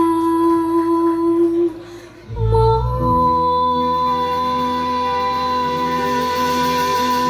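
Live band music with singing: a long held sung note, a short drop in level about two seconds in, then a low bass hit and the band carrying on with sustained chords.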